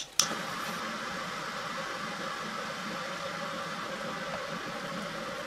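A sharp click near the start, then a steady, even whirring hiss with a low hum underneath, as from a kitchen appliance fan running.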